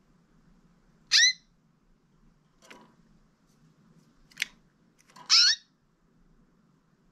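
Canary giving short, separate call notes: two loud chirps, about a second in and again just past five seconds, each ending in a downward slur, with two fainter, shorter notes between them.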